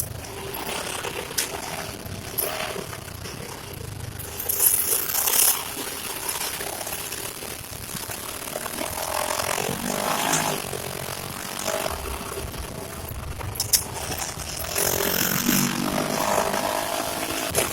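Honda Pioneer 700-4 side-by-side's single-cylinder engine running on a trail, revving up twice (about halfway through and again near the end). Short bursts of hiss and a few sharp knocks come through over the engine.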